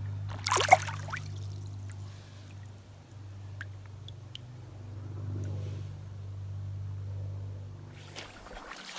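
A short splash of water about half a second in, over a steady low hum that cuts off near the end.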